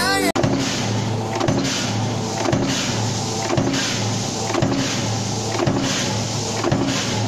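Stamping press running in continuous strokes, with a clack about once a second over a steady motor hum.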